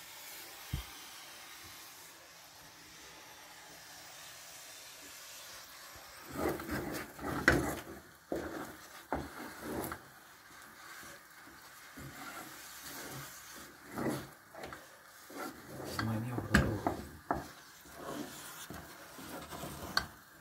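Thick mămăligă being stirred and scraped in an aluminium pot, irregular scraping with sharp knocks against the pot from about six seconds in. Before that only a faint steady hiss.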